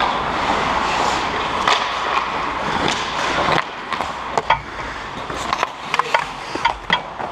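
Ice hockey play up close: skate blades scraping and carving the ice, then, from about three and a half seconds in, a run of sharp clacks of sticks and puck.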